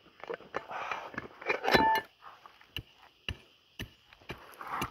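Scattered knocks, clicks and a short scrape of digging into dry, stony soil, with a brief beep from the metal detector about two seconds in.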